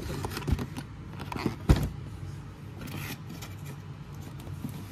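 Cardboard and plastic being handled: a cardboard insert scraped and pulled inside a plastic Beyblade stadium, with scattered rustles and light knocks and one sharper knock about two seconds in.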